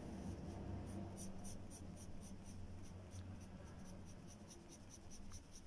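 Wooden pencil scratching on paper in quick short sketching strokes, about four a second, starting about a second in.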